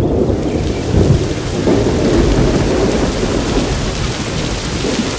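Thunder rumbling over steady heavy rain: a recorded storm sound effect opening a music track, starting suddenly and holding on without a break.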